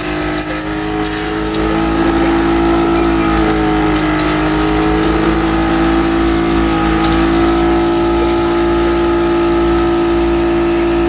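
Electric motor of a respiratory-therapy machine running with a steady hum that wavers slightly in pitch, with some hiss in the first second or so.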